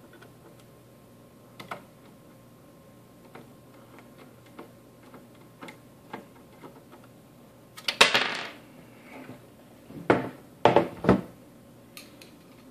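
Small, faint clicks of a screwdriver turning screws into the end cap of a metal access-point case. About eight seconds in comes a loud clatter, then several sharp knocks just after ten seconds as the metal case is handled and set down on a wooden table.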